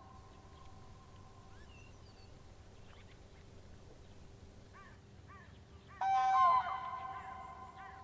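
A loud honking bird call about six seconds in, lasting under a second, over faint steady tones and a few soft short chirps.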